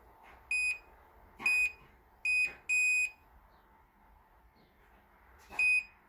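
Fingerprint padlock beeping five times in short electronic beeps, the fourth one longer, as fingers are read on its sensor while a guest fingerprint is being added.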